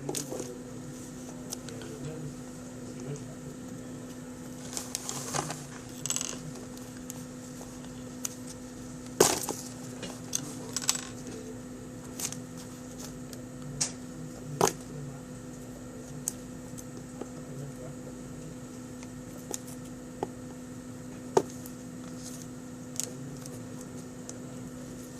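Scattered clicks, taps and light knocks of a phone and its packaging being handled, over a steady low hum; the sharpest knocks come about nine and about twenty-one seconds in.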